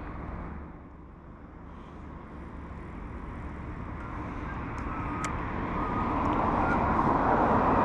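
Road traffic: a vehicle approaching, its noise rising steadily louder over several seconds.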